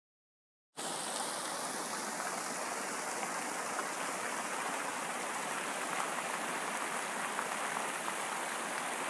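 Fountain jets splashing steadily into the fountain's pool, a constant rushing of falling water that starts about a second in.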